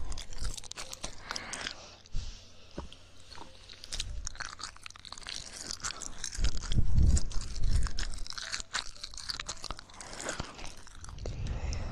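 Close-miked ASMR ear licking: a run of wet mouth clicks and smacks, with louder low muffled bumps about seven seconds in.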